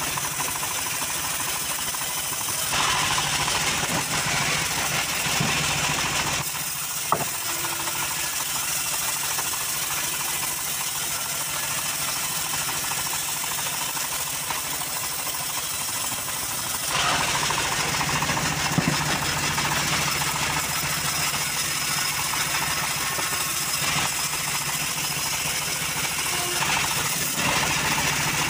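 Homemade band sawmill running and ripping a log of jowar (Siamese cassia) wood lengthwise: a steady mechanical drone with a low hum, growing louder in two long stretches, from about 3 to 6 seconds in and from about 17 seconds to the end.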